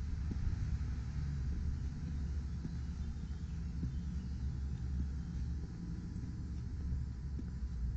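Steady low outdoor rumble picked up by a handheld camera's microphone while walking, with a few faint irregular ticks.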